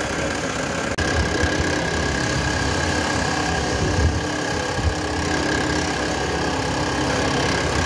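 Drill press running steadily as its bit bores into a wooden knife-handle scale, with a brief break in the sound about a second in.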